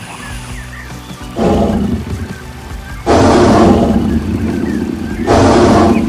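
Stampede sound effect: animal roars come in three loud bursts, about a second and a half in, around three seconds in and near the end. They sound over a steady low rumble and music.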